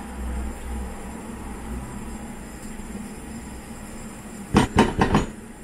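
Tofu and shrimp simmering in a nonstick wok on a gas stove, stirred with a silicone spatula, under a steady low hum and hiss. About four and a half seconds in come four quick, sharp knocks against the pan, the loudest sounds.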